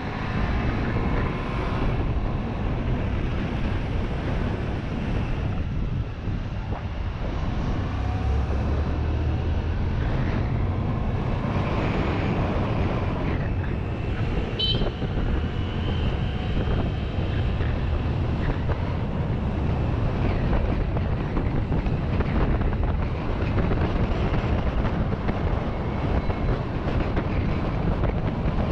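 Motorbike engine running steadily with wind rushing over the handlebar-mounted microphone while riding in city traffic. A short high squeak sounds about halfway through.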